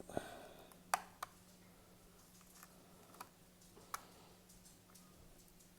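Small, sharp plastic clicks and taps, a few at uneven intervals, as a small screwdriver pries a model locomotive's plastic body shell away from its chassis. A faint steady hum runs underneath.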